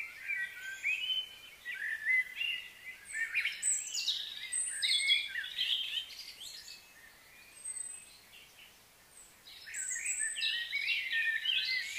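Birds chirping and singing, many short overlapping calls. The chorus thins to a lull for a few seconds past the middle, then picks up again near the end.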